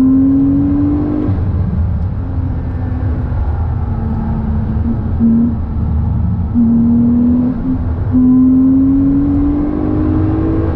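Car engine under power, its note rising, breaking off several times and climbing steadily again through the last few seconds, over a steady low road rumble.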